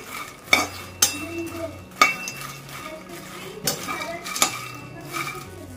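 Perforated steel spatula stirring makhana (fox nuts) roasting in a kadai, scraping and knocking against the pan with several sharp clinks.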